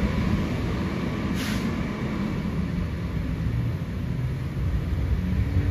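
Fire department ladder truck's diesel engine running with a steady low rumble, and a brief hiss about a second and a half in.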